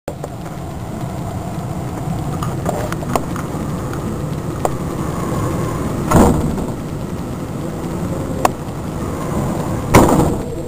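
Storm wind and heavy rain as a steady low rumble, with louder bursts about six and ten seconds in and a few sharp taps.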